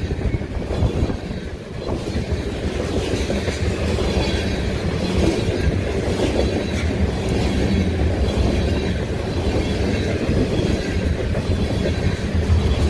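Freight train tank cars and a covered hopper rolling past, their steel wheels rumbling steadily on the rails with occasional clacks.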